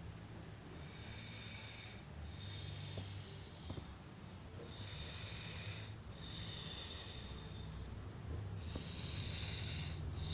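A person snoring, each cycle a pair of high whistling hisses close together, repeating about every four seconds over a steady low drone.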